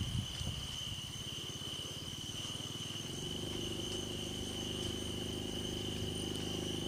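Night insects trilling steadily on one high note, over a low hum that turns into a steady drone about three seconds in.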